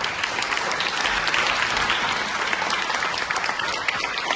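Audience applauding steadily in a theatre hall at the end of a poetry reading, a dense spread of many hands clapping.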